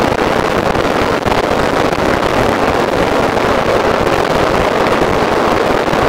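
Wind rushing over the microphone of a moving motorcycle, a loud steady rush with constant rough buffeting, with road and vehicle noise underneath.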